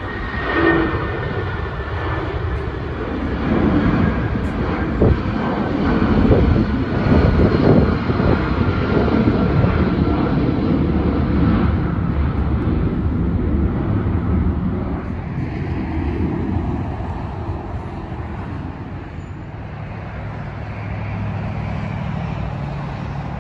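Jet engines of a Boeing 757 airliner at climb power just after takeoff. The noise swells to its loudest in the first half, with a high whine that slowly falls in pitch, then fades to a lower, steadier hum near the end.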